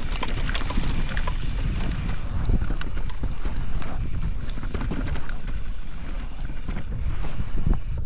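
Crussis E-Full 10.10 Pro electric mountain bike riding down a trail: steady rumble of tyres and wind on the microphone, with many quick rattles and knocks from the bike over rough ground.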